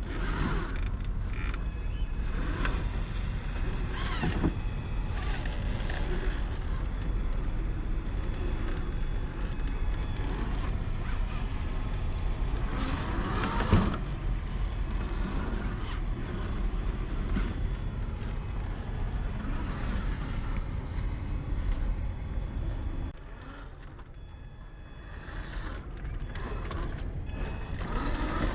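Traxxas TRX-4 scale RC crawler's electric motor and geared drivetrain whining and creaking as it crawls over rock, with knocks of the truck on the rock, the loudest about 14 seconds in. It goes quieter for a couple of seconds about 23 seconds in, then picks up again.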